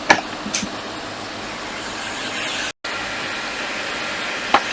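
Hot air rework station blowing, a steady rush of air, with a few light clicks of tweezers near the start and end. The sound cuts out for a moment about halfway through.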